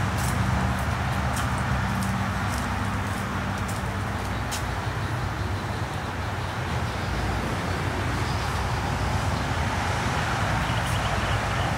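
Steady outdoor background noise: a low rumble with a hiss over it, and a few faint ticks in the first few seconds.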